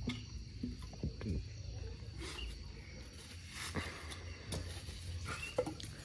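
Scattered dull knocks of firewood logs being set down and shifted by hand onto a small bonfire pile, about ten irregular knocks over the few seconds.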